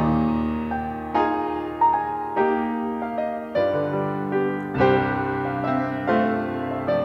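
Piano playing a slow, gentle piece, with notes and chords struck about once or twice a second and each left to fade.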